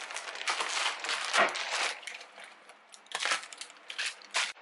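Plastic food packets crinkling and rustling as they are set down one on another on a wooden cutting board. The sound comes in two spells of rustling with a few sharp crackles.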